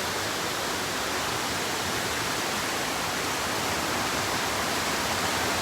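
Steady rushing of a creek and its small waterfall.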